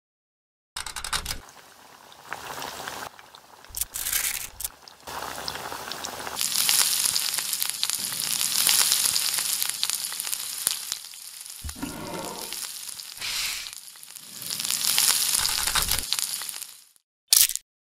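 Sizzling of chicken deep-frying in hot oil, in several stretches that start and stop, loudest in the middle and near the end.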